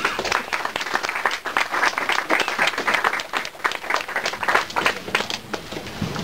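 Audience applauding after a poem, dying away near the end.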